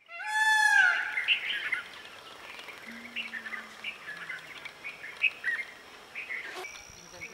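Indian peafowl (peacock) giving one loud, ringing call with many overtones at the start, rising slightly in pitch and lasting under a second. Smaller birds chirp on and off after it.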